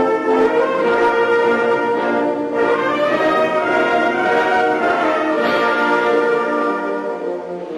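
Orchestral music with brass to the fore, playing long held notes.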